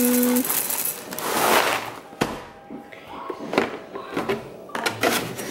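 Dry cereal pouring from a cardboard box into a bowl, a rattling rush for about the first two seconds. Then a few sharp knocks and clicks as the box and a plastic milk jug are handled on the table.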